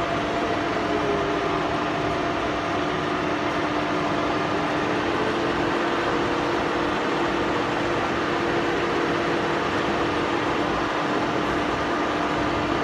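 Collet BFf100 horizontal boring machine running steadily, a continuous mechanical hum with a steady whine from its drive.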